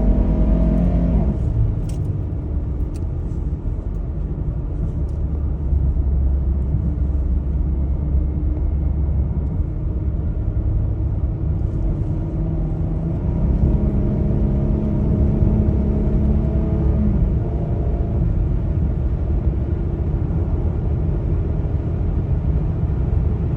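Car engine and low rumble. The engine revs drop about a second in, then it runs steadily with a low rumble. A clearer, steady engine tone comes up from about 13 to 17 seconds.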